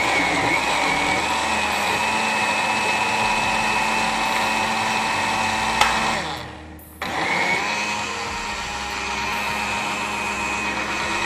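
Countertop electric blender running steadily, blending a strawberry ice cream mixture of cream and fruit. About six seconds in it is switched off and dies away, then is started again a second later.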